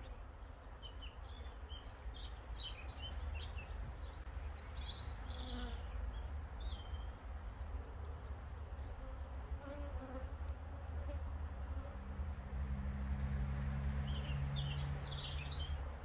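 Honeybees buzzing around an open hive, a steady hum that grows louder and fuller for a few seconds near the end.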